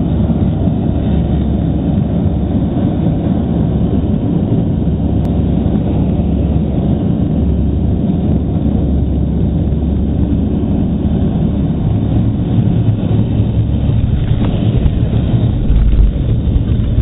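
Steady low rumble of a jet airliner's engines and rushing air, heard inside the cabin on the final approach to landing with the flaps extended. A short low thump near the end comes as the aircraft reaches the runway, which fits the wheels touching down.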